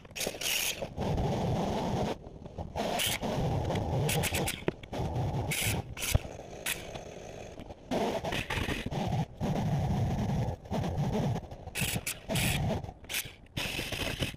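Scraping and scratching from deck demolition work, heard in choppy half-second to one-second snatches that start and stop abruptly, with short sharp knocks among them.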